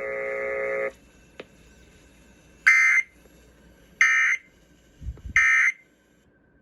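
Emergency Alert System end-of-message code: three short electronic data bursts, each about a third of a second long and a little over a second apart, signalling that the severe thunderstorm warning broadcast has ended. Before them a steady held tone cuts off about a second in.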